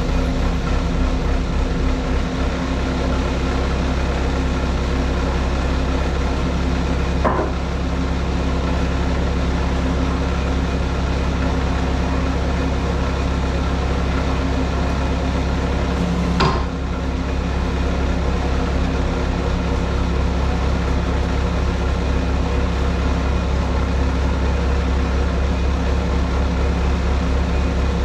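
Skid steer diesel engine running steadily, driving a Halverson 140B skid-steer firewood processor. Two short, sharp knocks stand out, about 7 seconds and 16 seconds in.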